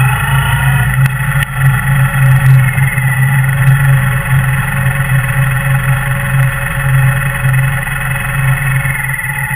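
Kawasaki W800's air-cooled parallel-twin engine running steadily at low road speed, heard from a camera mounted on the bike, with a low pulsing exhaust note.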